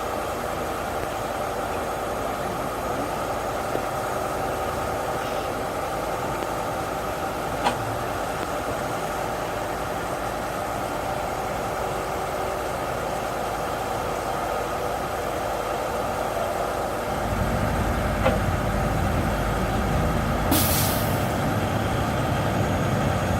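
Heavy truck engine running steadily, with a deeper rumble coming in about two-thirds of the way through as it works harder. Near the end there is a short hiss of released air, lasting about a second.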